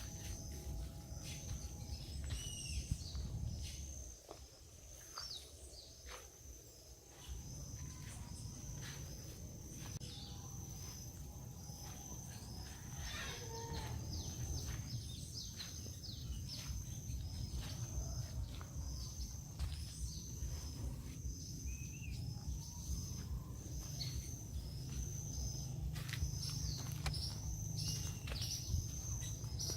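Outdoor nature ambience: birds chirping and calling over a steady high-pitched insect drone, with a low rumble underneath that fades for a few seconds near the start.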